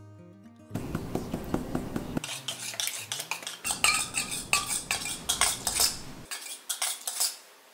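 A utensil clinking and scraping against a stainless steel mixing bowl in quick, irregular strokes as something is stirred, starting under a second in.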